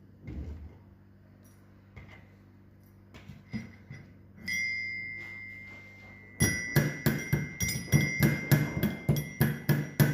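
Cloves being pounded to powder in a metal mortar with its pestle. There are a few light clicks, then one ringing knock about four and a half seconds in, then from about six seconds in a steady rhythmic pounding of about three strokes a second, each strike ringing.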